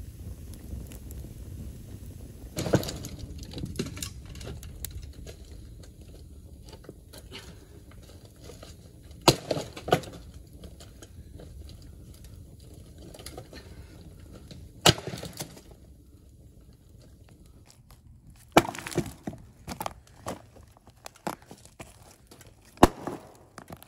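Dry wood being broken and handled on stones: about half a dozen loud, sharp cracks of snapping branches, with smaller knocks and rustles between them. At first these sit over the low, steady rumble and crackle of an open wood fire.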